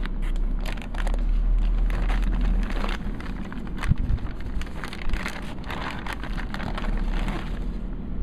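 Anti-static plastic bag around a motherboard crinkling and rustling as it is handled, in dense irregular crackles, with one sharp knock about four seconds in.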